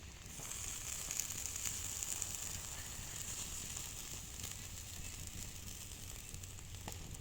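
Food frying in hot oil: a steady sizzle with many small crackles.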